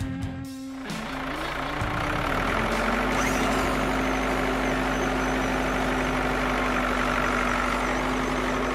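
Vehicle engine running steadily for a wheel spinning stuck in sand; its pitch wavers briefly before holding steady. Guitar music cuts off about a second in.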